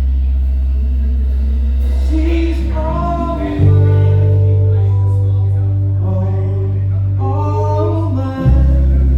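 Live band music: a bass holds long low notes that change about every five seconds, under keys, drums and a melodic lead line.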